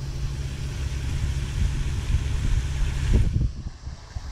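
A motor running steadily with a low hum, which dies away about three seconds in, followed by low wind rumble on the microphone.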